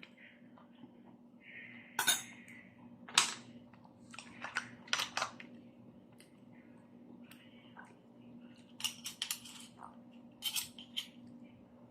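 Shellfish shells clicking and clinking against each other and a plate as mussels, oysters and clams are opened and eaten. The loudest knocks come about two and three seconds in, with small clusters of clinks later, over a steady low hum.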